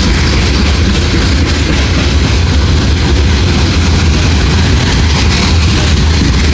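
Coal hopper cars of a freight train rolling past close by: a loud, steady rumble of steel wheels on rail with a deep low drone.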